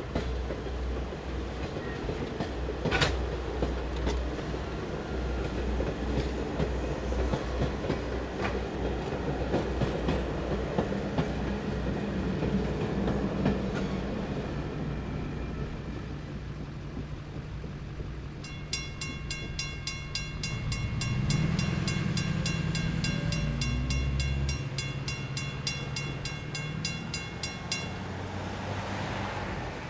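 Passenger coaches rolling past on the rails with a low rumble and the clickety-clack of wheels over rail joints. A sharp clack comes about three seconds in. Then, a little past halfway, a grade-crossing warning bell rings steadily for about ten seconds while road cars start up and drive across the tracks.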